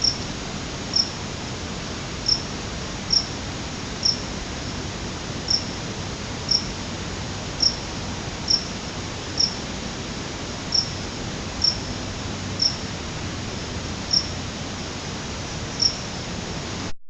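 An insect chirping: a single short, high chirp repeated roughly once a second at slightly uneven intervals over a steady background hiss of the open mountainside. The recording cuts off suddenly near the end.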